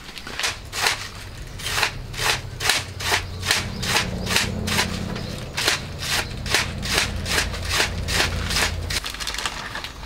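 Kitchen knife chopping a crisp vegetable on a cutting board in even strokes, a little over two a second, over a low steady hum; both stop about a second before the end.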